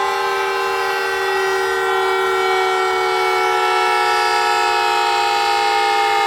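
Outdoor warning siren sounding a loud, steady chord of several tones, its pitch sagging slowly.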